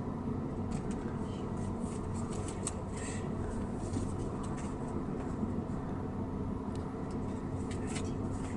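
Steady low rumble and hum of a moving Amtrak passenger train heard from inside the carriage, with a few faint clicks.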